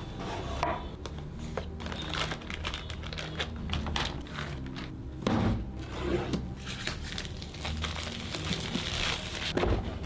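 Crinkling of plastic packaging and frequent small clicks and knocks as computer parts are handled.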